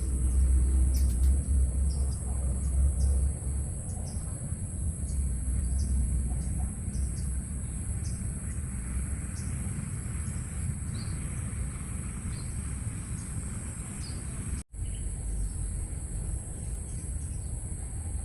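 Forest insects droning steadily at a high pitch, with many short chirps over it. A low rumble is strong for the first few seconds, and the sound drops out for an instant about three-quarters of the way through.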